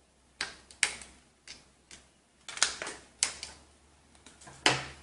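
Scissors snipping, a series of short sharp snips at an uneven pace, as marked pieces are cut out.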